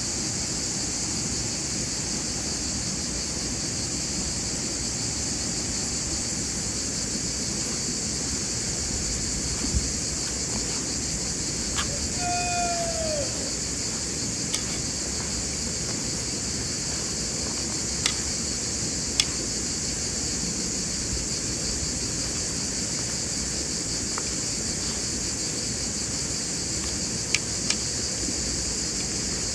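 Steady chirring of crickets and other insects, with a few sharp clicks scattered through it. About twelve seconds in there is one short call that falls in pitch.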